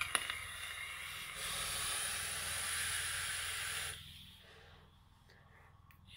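Long draw on an Avocado 24 dripping atomizer fired at 76 watts on a 0.26-ohm Clapton-coil build: a steady hiss of air pulled through over the firing coils, growing louder after about a second and cutting off abruptly about four seconds in.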